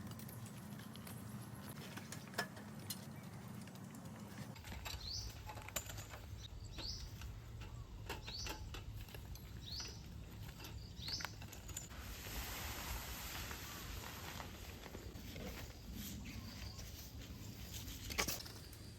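A bird's short rising chirp, repeated about once a second five times, over a faint outdoor background with scattered clicks.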